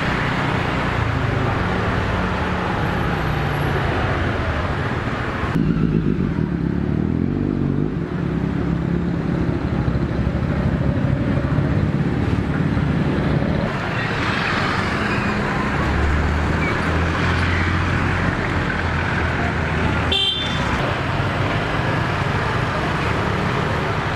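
Busy town-street traffic: motor scooters and cars running and passing, with a steady low engine hum. The traffic sound changes abruptly a few times.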